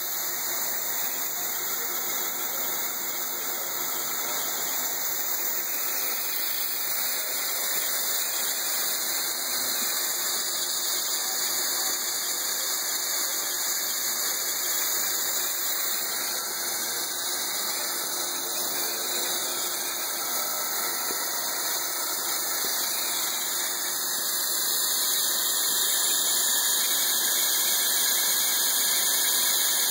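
1964 BOKO RS1V-E vertical milling machine running, its end mill cutting across a metal plate under coolant spray: a steady machining noise that gets a little louder about four-fifths of the way through.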